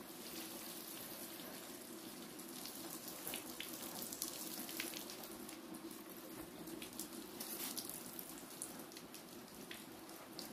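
Water running from a tap and splashing into a sink, with scattered brief sharper splashes over a steady rush.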